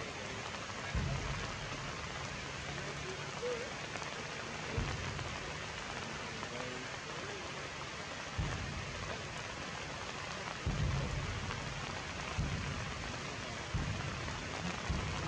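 Steady rain falling on forest foliage, an even hiss, broken by several short, dull low thumps every couple of seconds.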